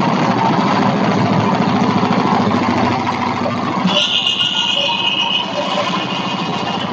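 Hudson Patriot bandsaw mill's gasoline engine running at idle while it warms up, a steady drone. About four seconds in a high-pitched whine joins it.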